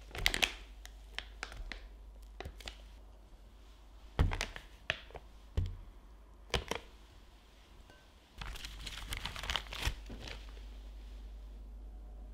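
A rubber spatula scrapes thick pastry cream from a glass bowl and drops it into a plastic piping bag, with a few soft thunks. Then, about eight seconds in, the plastic bag crinkles in a dense run of crackles as it is handled and closed.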